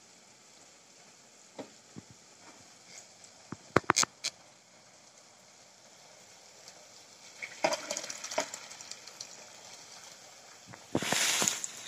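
Kitchen handling sounds: a few sharp clinks of utensils about four seconds in, a stretch of scraping and clatter a little later, and a short hissing rush near the end.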